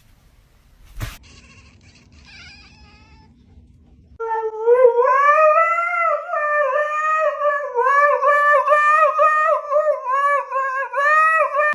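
A dog howling: one long, wavering howl of about seven seconds that starts abruptly a few seconds in. A single knock sounds about a second in.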